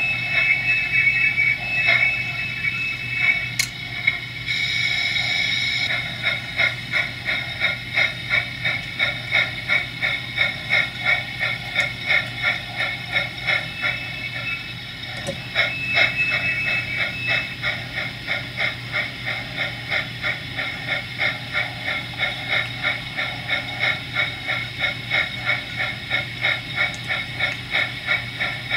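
Sound-equipped HO-scale model steam locomotive working: steady exhaust chuffs, about two to three a second, with a burst of steam hiss about five seconds in.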